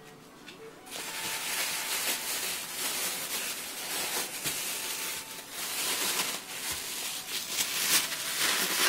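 Thin plastic food bag crinkling and rustling in quick crackles as it is wrapped and squeezed around crumbly pasta dough, starting about a second in.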